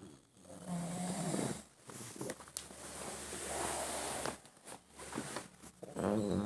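A sleeping person snoring: one snore about half a second in, a long breathy rasp in the middle, and another snore starting near the end.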